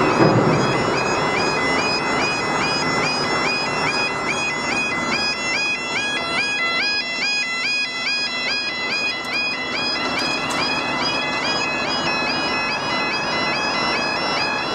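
Railway level crossing alarms sounding a high-pitched, squeaky electronic tone that warbles in a fixed pattern, repeating several times a second, as the crossing closes for an approaching train.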